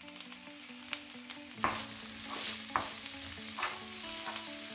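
Mixed minced meat, onions and peppers sizzling in a frying pan while a wooden spatula breaks up the meat. The spatula scrapes and taps sharply against the pan about once a second, starting about a second and a half in.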